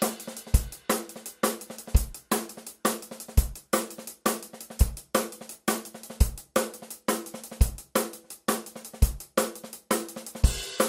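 Background music: a steady drum-kit beat with hi-hat and cymbals over faint held tones, a bass drum hitting about every second and a half.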